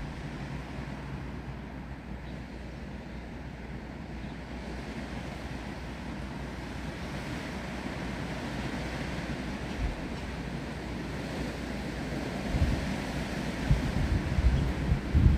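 Steady wind and rain noise through trees, slowly building. From about three-quarters of the way in, irregular gusts buffet the microphone with low rumbling thumps.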